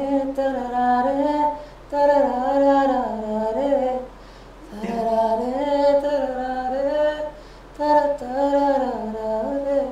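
A voice singing an unaccompanied melody on wordless syllables, 'naaro naare… naaro raa raa raaro', in about four held phrases with short breaks between them.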